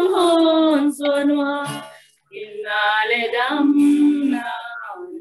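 Two women singing a Christian song together, with long held notes; the singing breaks off briefly about two seconds in and then goes on.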